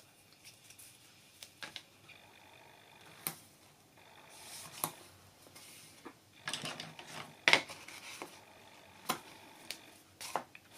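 Double-sided adhesive tape being drawn off its roll, torn and pressed onto cardstock envelope flaps: irregular rustles of paper and tape with a few sharp clicks, busier in the second half.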